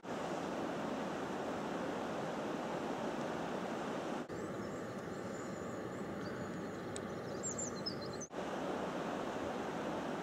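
Steady rushing of river water, in short stretches that change abruptly about four and eight seconds in, with faint high chirps in the middle stretch.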